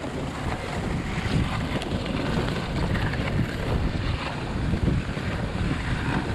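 Dog sled gliding over a packed snow trail: a steady rushing and rumbling of the runners on the snow, with wind buffeting the microphone.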